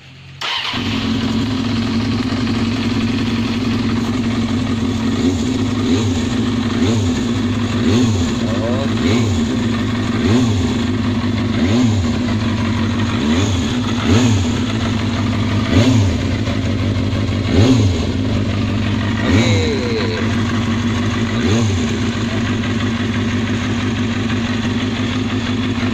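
Kawasaki ZXR250's 250 cc carburetted inline-four engine running, its throttle blipped over and over, the revs rising and falling about every one and a half seconds. There is no knocking on the revs now that the sticking tensioner spring has been freed and the tensioner greased.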